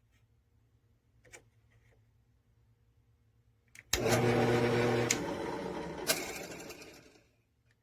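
Electric drill motor starting suddenly about four seconds in, running at full speed for about a second with a couple of sharp clicks, then winding down over a few seconds. A few faint clicks come before it.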